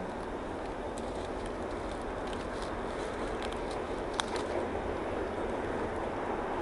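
Distant approaching freight train led by two EMD SD40-2 diesel locomotives: a steady rumble that grows slowly louder, with a few short bird chirps over it.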